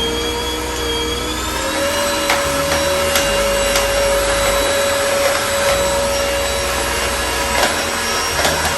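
Deerma VC01 handheld cordless vacuum cleaner running with its brush attachment: a steady motor whine that steps up in pitch about two seconds in and then holds. A few light clicks can be heard over it.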